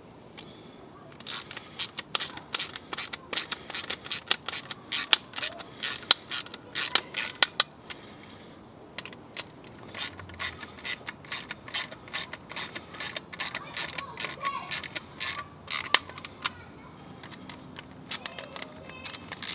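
Hand ratchet clicking in quick, uneven runs as small screws are driven into a plastic window switch housing, pausing for about a second midway and again near the end.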